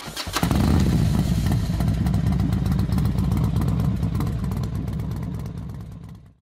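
Motorcycle engine running steadily, opening with a couple of sharp clicks and fading out over the last second or so.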